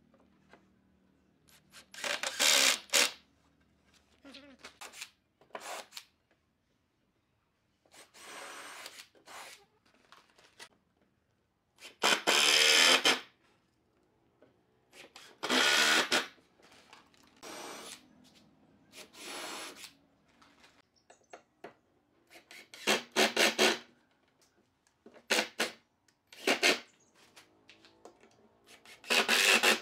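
Makita cordless driver running in about ten short bursts, each about a second long and a few seconds apart, driving long screws into pine boards.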